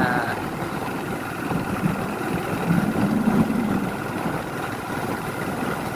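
Motorcycle engine running steadily, heard from on the bike, with a low hum that swells a little about three seconds in.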